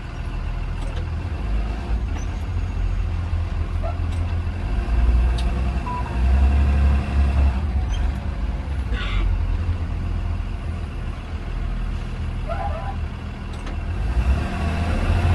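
Interior rumble of a 2020 Blue Bird Vision school bus under way: a low, steady engine and road drone that builds near the end as the bus speeds up.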